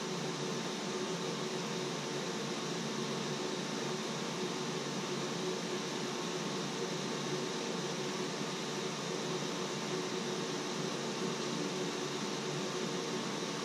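Steady, even hiss with a faint steady hum underneath, unchanging throughout, of the kind a running fan makes.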